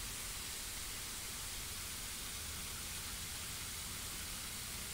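Steady, featureless hiss of background noise, with no distinct event.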